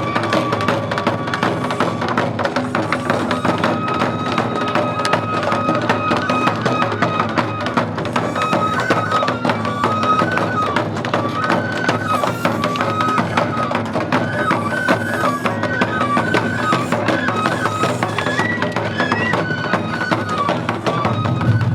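Japanese festival music for a shishimai lion dance: a flute plays a stepping melody over steady drumming and percussion.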